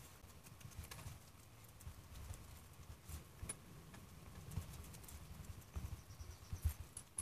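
Red silicone spatula pressing and patting minced meat with vegetables into a metal loaf tin, packing it down to squeeze out air pockets. It makes faint, irregular soft thuds with a few light clicks.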